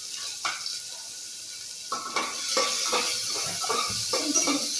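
Chopped onion frying in hot oil in an aluminium pressure cooker, a steady sizzle. From about two seconds in, a metal spatula scrapes and knocks against the pot several times a second as the onion is stirred.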